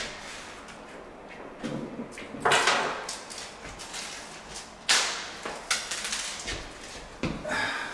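Irregular knocks and clatters of hands handling tools and fittings, with a brief scraping rustle about two and a half seconds in and sharper knocks near five and seven seconds.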